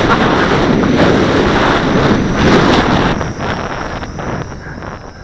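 Gusty wind buffeting the microphone, strong for about three seconds and then easing off, with the faint, steady high whine of the MJX X400 quadcopter's motors underneath.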